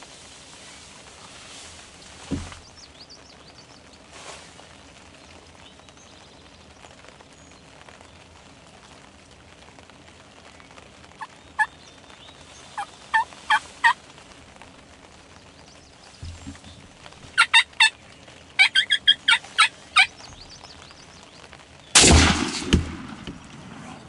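A wild turkey tom calls: a few short notes, then rapid bursts of gobbling. About two seconds before the end a single loud shotgun blast rings out and dies away.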